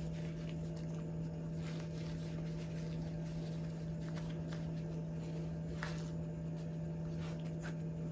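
Steady low electrical hum, with faint soft rustling and fabric handling as small fabric booties are pulled onto a small dog's paws.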